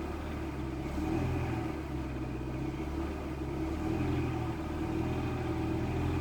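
Renault Mégane 2 petrol engine held at raised revs with cylinder 1's ignition coil unplugged, running rough on three cylinders, its note swelling slightly a couple of times. The knock under investigation persists with that cylinder switched off, so it is not coming from cylinder 1.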